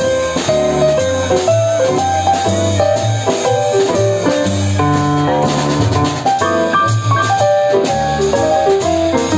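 Jazz piano trio playing: a Yamaha CP stage piano plays moving melody lines over plucked upright double bass notes and a drum kit keeping time with steady cymbal strokes.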